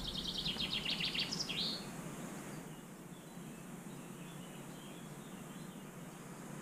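A songbird sings one short phrase of rapid trilled high notes ending in a quick flourish, in the first two seconds; after that only faint steady outdoor background remains.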